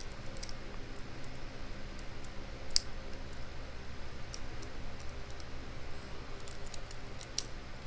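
Small metallic clicks and ticks of a lock pick and tension wrench working the pins of a padlock, with two sharper clicks, one about a third of the way in and one near the end, over a steady low hum.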